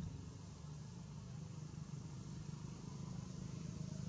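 A steady low engine hum, like a motor idling.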